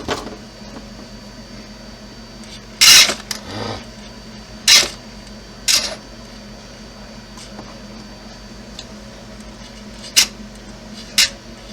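Kyosho Blizzard RC snow tractor being run from its transmitter: several short, sharp mechanical bursts from its motors and blade servo over a steady low hum, as the tracks keep running when they should stop.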